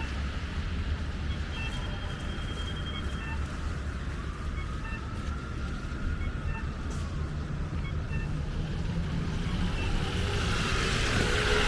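City street traffic with a steady low rumble and short high electronic beeps repeating roughly once a second. Near the end a vehicle passes close by, its tyres hissing on the wet, snowy road.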